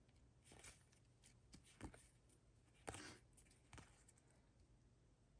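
Faint, short flicks and slides of 2023 Topps Series 2 baseball cards being flipped one at a time from one stack to another, a soft scrape about every second.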